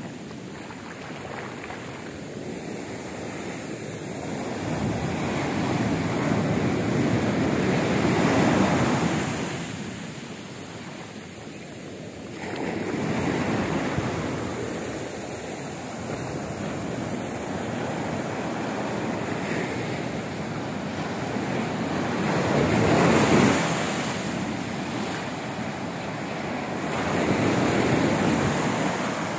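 Ocean surf breaking and washing up over a sandy beach: a steady rush of water that swells louder with each incoming wave, about four times over the half-minute.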